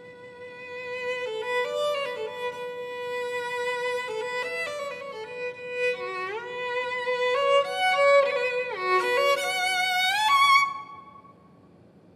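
Unaccompanied violin playing a slow, free phrase: a held note swells in, then notes slide up and down in pitch and climb to a high note that breaks off near the end, leaving only faint room tone.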